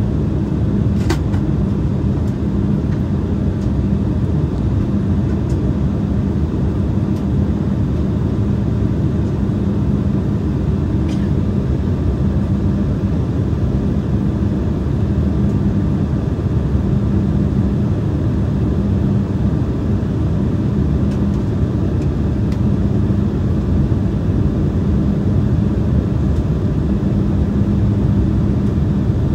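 Steady cabin drone of an Embraer 175 airliner in flight, its wing-mounted GE CF34 turbofans and the airflow making an even rush with a steady low hum.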